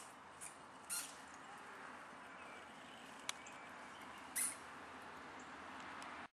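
A mouse squeaking in short high-pitched bursts, three times, in distress as a cat catches it, with one sharp click a little after the middle. The sound cuts off just before the end.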